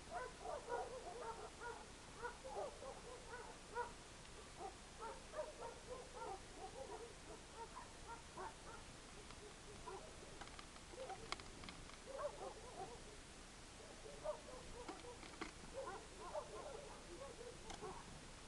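A group of birds calling: a steady chatter of many short, low chirps overlapping one another, with a few sharp ticks about two-thirds of the way through.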